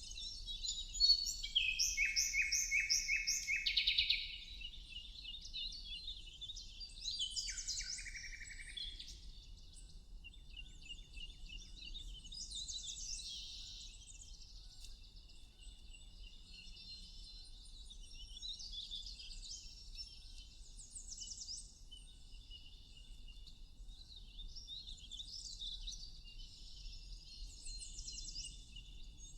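Songbirds singing and chirping. Loud phrases of quick repeated notes come in the first few seconds and again about seven seconds in, with quieter scattered chirping after that.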